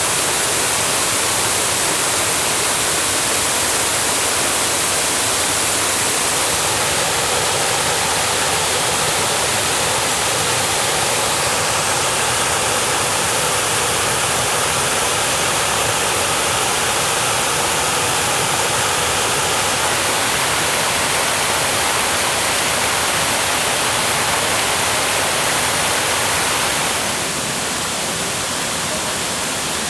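Water rushing over a waterfall, a steady, dense hiss. About 27 seconds in it changes and eases slightly.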